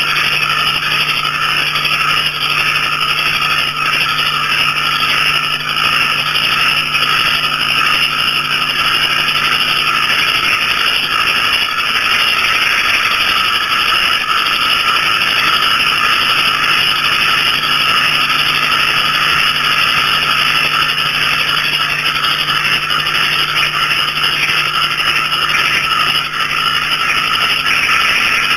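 Dense night chorus of small frogs and crickets calling together, a steady unbroken mass of trills and chirps, with a low steady hum underneath that drops out for a few seconds near the middle.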